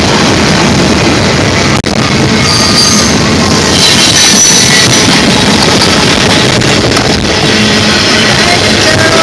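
Freight train rolling past close by, its wheels and cars making a loud, dense rumble that overloads the microphone. A thin high-pitched wheel squeal rises over it about three seconds in, and the sound briefly cuts out just before two seconds.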